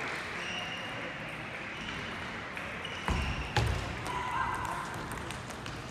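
Table tennis played in a large sports hall: a steady hall hubbub, with two knocks of the celluloid ball on bat and table a little after three seconds in, the second a sharp click.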